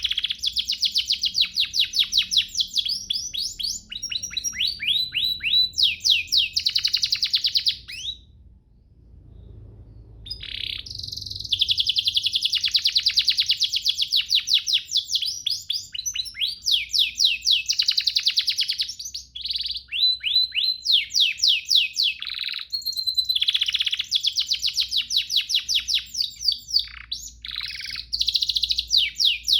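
Domestic canary singing long runs of fast, high trills and rolls, with a pause of about two seconds about a third of the way in.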